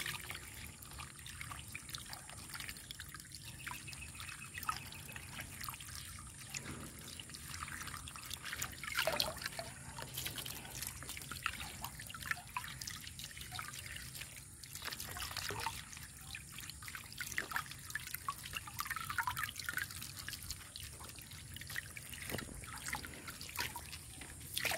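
Water sloshing and dripping in a plastic basin as fresh ginger rhizomes are swished and rinsed by hand in muddy water, with irregular small splashes and drips.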